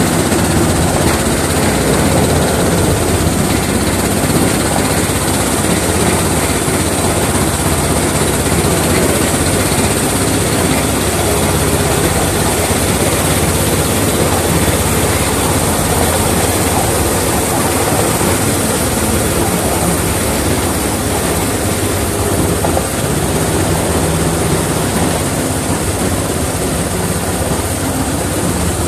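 Miniature railway class 31 locomotive running steadily along the line, heard from the cab: a constant drone of drive and wheels on rail under a steady hiss, with no change in pace.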